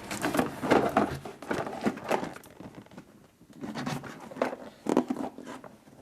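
Irregular handling noises: plastic packaging crinkling and rustling, with light clicks and taps from toys being picked up and set down.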